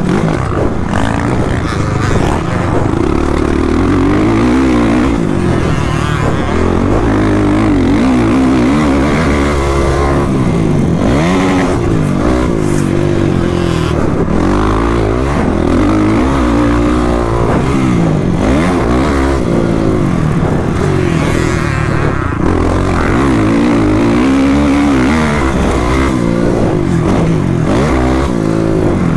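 Motocross bike engine revving hard and repeatedly, its pitch rising and falling over and over as the rider races around the dirt track.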